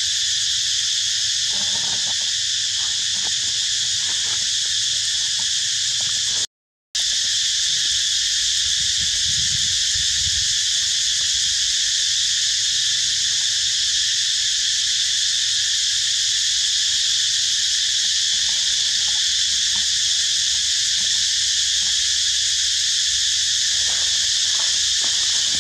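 Steady, high-pitched insect chorus droning without a break, except that it cuts out completely for a moment about six and a half seconds in.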